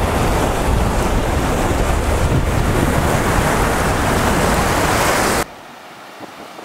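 Loud, rushing wind and surf noise on a camera microphone skimming low over breaking waves. It cuts off suddenly about five seconds in, leaving quieter surf.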